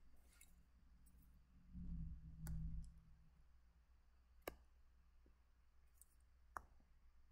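Three faint, sharp clicks about two seconds apart, made while drawing strokes at the computer, with a brief low rumble around two seconds in. A faint steady low hum sits underneath.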